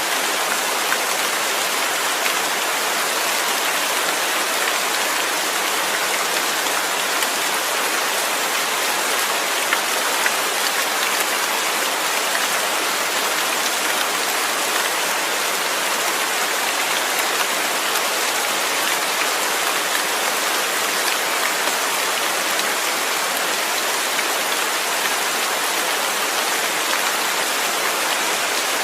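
Steady rain falling, an even hiss of drops with faint scattered patters on a surface.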